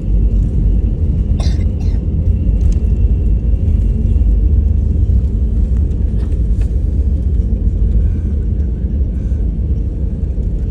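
Steady low rumble inside the cabin of an Airbus A321LR neo rolling on the runway just after landing, with a couple of brief clicks.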